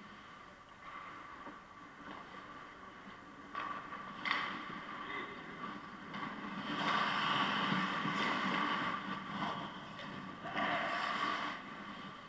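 Ice hockey skates scraping and carving the ice, growing louder about a third of the way in and loudest past the middle as the players close in on the net, with irregular surges of scraping.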